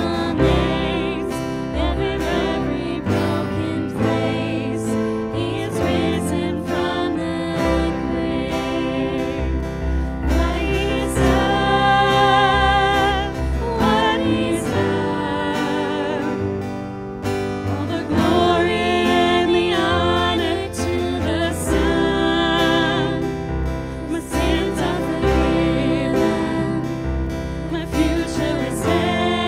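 Live worship song: singers and a congregation singing together over strummed acoustic guitars and a piano.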